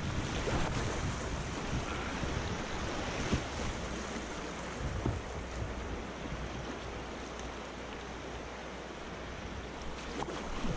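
Steady rushing of water and wind buffeting the microphone, with a few faint knocks.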